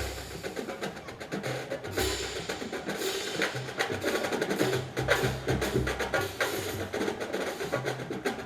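Marching drum line playing a cadence: sharp stick clicks over short pitched notes from tuned bass drums.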